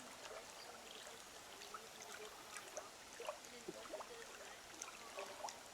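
Faint, steady sound of running water, with small gurgles and plops, and faint distant voices of people talking.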